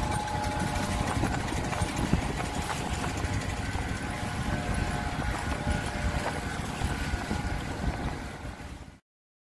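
Sailing yacht's inboard engine running under way, with wind on the microphone and water noise. It fades out about a second before the end and cuts to silence.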